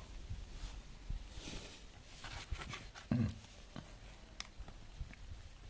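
Faint rustles and scattered light clicks of handling, with one short low sound about three seconds in.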